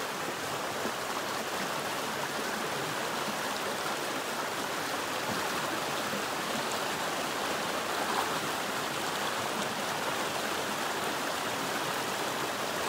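Stream rushing steadily down a small rocky cascade, a constant even sound of white water.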